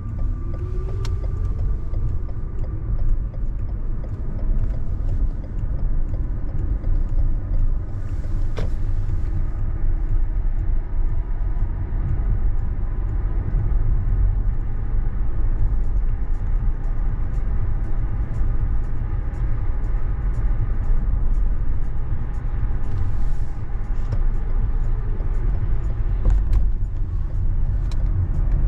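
A car driving: steady low rumble of road and tyre noise with engine hum, and a rising engine note near the start.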